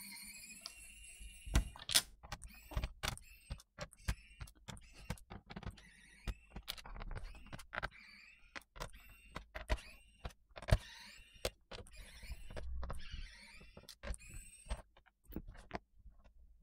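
Small electric screwdriver (SeQuRe SQ-ES126) whirring briefly at the start as it backs out a screw from a plastic laptop base. Then scattered light clicks and clinks of tiny screws and tools being handled and set down.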